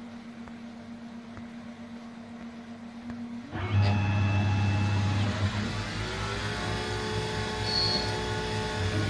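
Denford Cyclone CNC lathe running its program on aluminium bar stock: a steady low hum, then about three and a half seconds in the machine gets suddenly much louder with a whining drive note that rises in pitch and then holds steady as the spindle and axes come up to speed for a facing cut.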